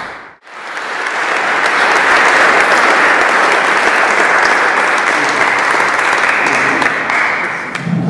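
Audience applauding, many hands clapping at once. It drops out for a moment just after the start, comes back, and tails off near the end.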